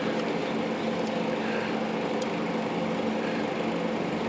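Steady mechanical hum of an electric motor running in the room, with a few faint ticks.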